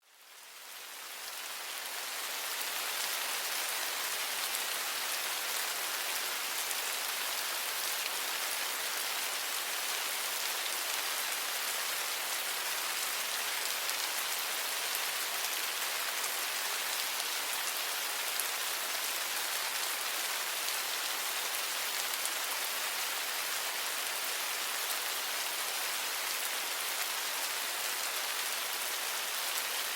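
Steady rain falling, an even dense hiss with its weight in the higher pitches, fading in over the first two or three seconds and then holding steady.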